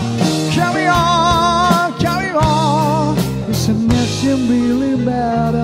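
Live rock band playing a slow piano ballad: a male singer holding long notes with vibrato over keyboard, bass guitar and drums.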